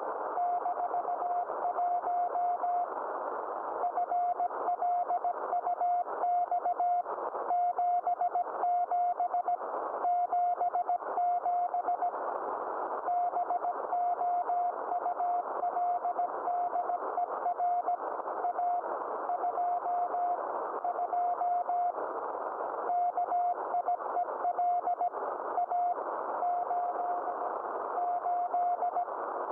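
Morse code (CW) from the DK0WCY aurora beacon on 3579 kHz, heard through a Yaesu FT-991A shortwave receiver. A single mid-pitched beep keys on and off at a steady sending pace, with short pauses between groups, over constant band-noise hiss. The beacon is sending its space-weather report: solar flux and the Boulder and Kiel A indices.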